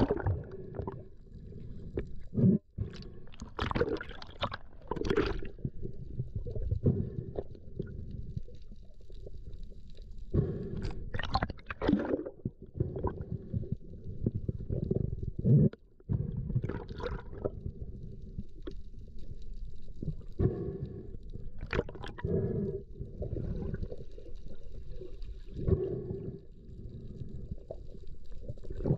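Muffled water sounds heard underwater: irregular gurgling, bubbling and water rushing, with a steady low hum underneath.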